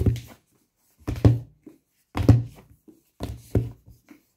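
Hardcover books thumping as they are pulled from stacks and set down on a table, about five dull knocks a second or so apart.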